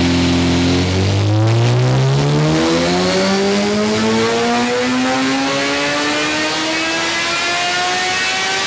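2012 Suzuki GSX-R1000 inline-four breathing through a full Akrapovic Evolution titanium exhaust in a dyno pull. The engine holds a steady low note for about a second, then the throttle opens and the pitch climbs steadily as the revs rise under load on the dyno roller.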